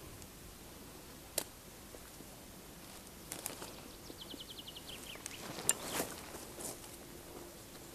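Quiet outdoor ambience. A small songbird gives a quick trill of about ten short notes falling in pitch, and a few sharp clicks are followed by a brief rustling crunch of footsteps on dry grass and ground litter.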